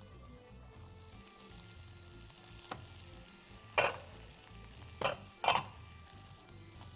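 Three sharp clinks of pot lids being handled on cookware, about a second apart in the second half, over a faint steady hiss.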